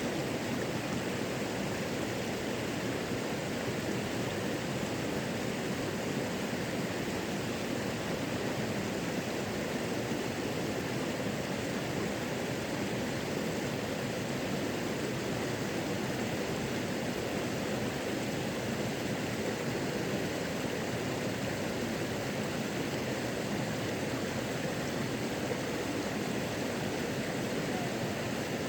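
Natural waterfall: a steady, unbroken rush of falling water.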